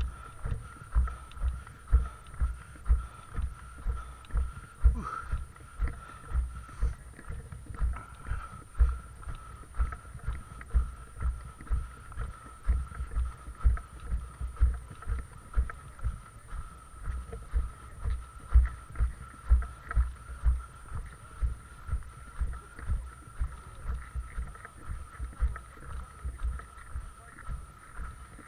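Footsteps of a person walking: low thuds at an even pace, about two a second.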